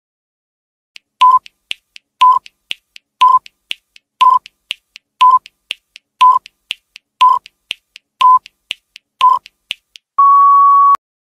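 Countdown timer sound effect: a short beep every second, with quick clock-like ticks between the beeps, about nine in all. It ends in one longer steady beep as the timer reaches zero.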